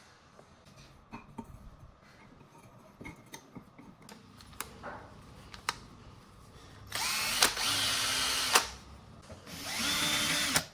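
Electric drill running in two short bursts, each spinning up quickly and holding a steady whine, after a few seconds of light handling clicks and taps.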